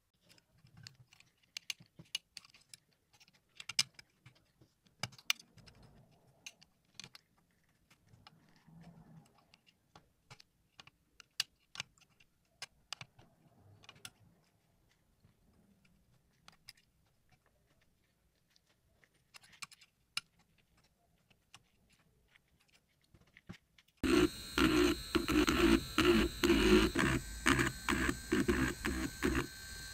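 Close-up clicks, taps and small scrapes of cleaning tools on an iPhone's frame, charging port and speaker grille, sparse and light at first. Near the end, a much louder, rapid, repeated scratching starts abruptly as a metal pick works the speaker grille holes.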